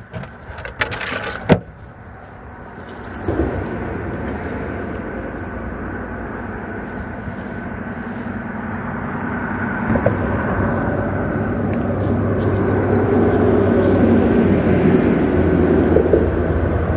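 A few sharp clicks and knocks in the first second and a half, then the low rumble of a passing vehicle that swells steadily over about ten seconds and stays loud.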